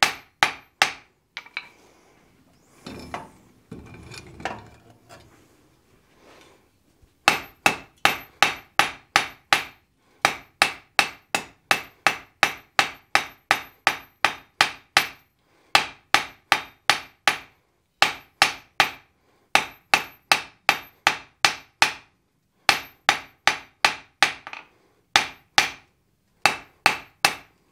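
Hand hammer striking red-hot steel on an anvil at about three blows a second, in runs broken by short pauses, each blow ringing sharply. The bar is being drawn out to a taper. The hammering stops for a few seconds near the start.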